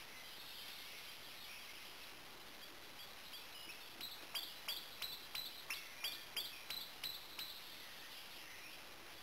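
Faint woodland birdsong, then about four seconds in a bird gives a series of about a dozen sharp, short call notes, roughly three a second, for about three and a half seconds.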